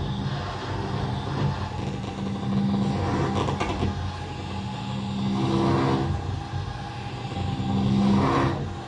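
Hurdy-gurdy sounding a low, buzzing drone on steady pitches that swells louder about three times. It turns rough and scraping for a moment a few seconds in.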